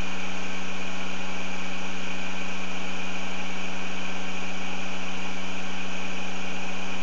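Experimental pulse-motor rig running with a steady, unchanging electrical hum: one constant low tone with fainter overtones over a hiss.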